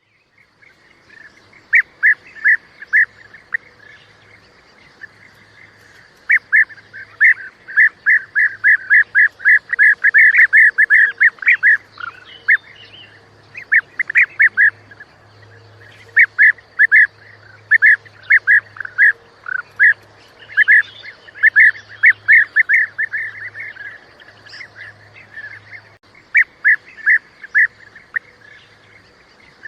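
Bee-eater calls: short, liquid chirps repeated in quick runs of several at a time, with pauses of a second or two between runs. A faint steady hum lies underneath.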